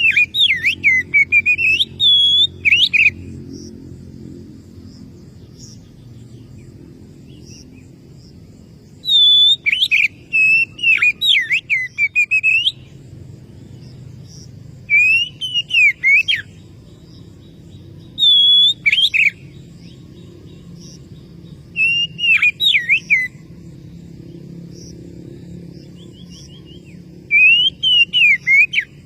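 Oriental magpie-robin (kacer) singing a rival-challenge song: loud bursts of sharp, swooping whistled notes, each phrase one to three seconds long, repeated every few seconds with pauses between. A steady low hum runs underneath.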